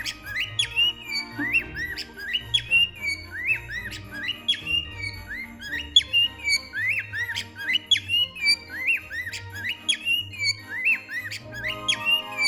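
A cockatiel giving short, repeated honking calls, often two or three in quick succession, over background music.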